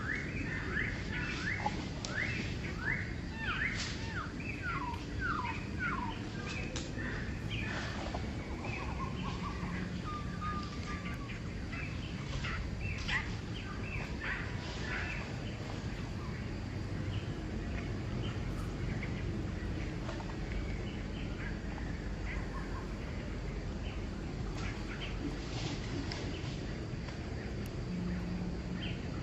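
Small birds chirping: a quick run of short, falling chirps, several a second, for the first several seconds, then scattered chirps, over a steady low background hum.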